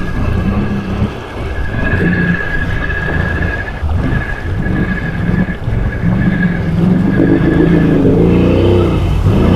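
Can-Am Outlander XMR ATV's V-twin engine running under load as the quad wades through deep swamp water, with a steady high whine over it. The revs rise near the end.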